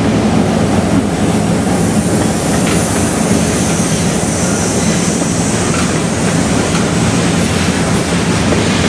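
Heavy freight train of tank cars and covered hoppers loaded with frac sand rolling past, the steel wheels giving a steady rumble and clickety-clack over the rail joints.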